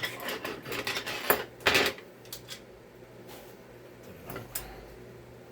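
Small metal parts and tools clinking and knocking on a workbench: a quick run of clatters in the first two seconds, then a few light clicks.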